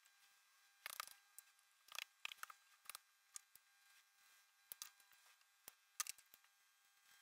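Scattered light clicks and taps of art markers being handled on a desk: picked up, uncapped and capped, and set down. The loudest click comes about six seconds in.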